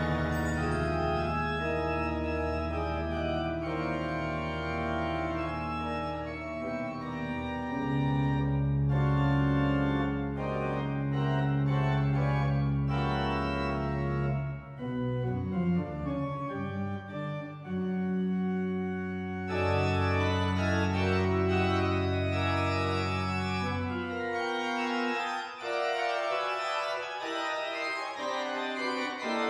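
Pipe organ playing slow, sustained chords over long-held deep pedal notes, in an adagio. The bass notes drop away near the end, leaving only higher held chords.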